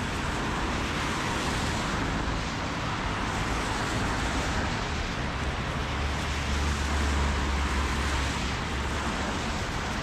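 Street traffic on a wet, slushy road: a steady hiss of car tyres through slush. A low rumble swells about five and a half seconds in and fades about three seconds later.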